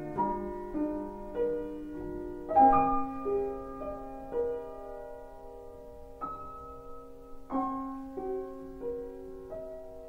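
Slow, gentle background piano music: single notes and chords struck every second or so and left to ring, with a stronger chord about two and a half seconds in and another near eight seconds.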